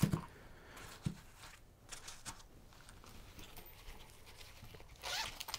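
Light handling sounds of small camera accessories and their padded zippered case: a soft knock at the start and another about a second in, then a brief rustle near the end.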